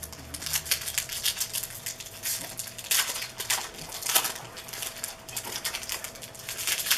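Stiff trading cards being thumbed through and slid over one another by hand: a run of quick, crisp flicks and rustles, with a few louder snaps about three and four seconds in.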